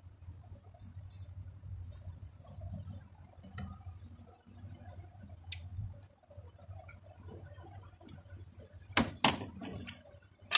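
Screwdriver turning screws in the rear housing of a car alternator, by the carbon-brush holder: faint, scattered metal clicks and scrapes, then two sharp knocks about nine seconds in.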